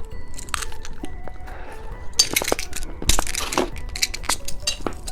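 Plastic-packaged novelty candies being handled and set down: a string of light clicks and clinks, with a crinkle of packaging about three seconds in, over faint background music.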